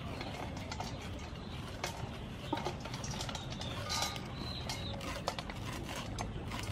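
A knife cuts kernels off an ear of white corn, making irregular crisp clicks as the kernels drop into a stainless steel bowl.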